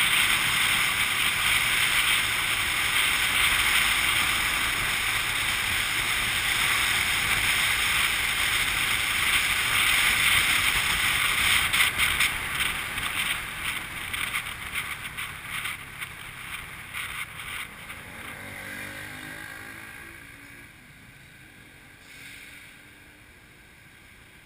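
Wind rushing over the microphone with road noise from a moving motorbike, loud and steady at first, then fluttering and fading from about halfway through as the bike slows, until only a faint background remains near the end.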